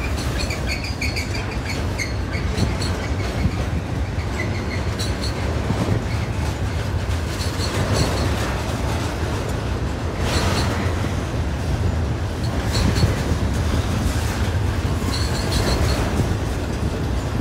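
BNSF double-stack intermodal freight cars rolling past close by: a steady rumble of wheels on rail with clicks over the rail joints. Short high-pitched wheel squeals come and go throughout.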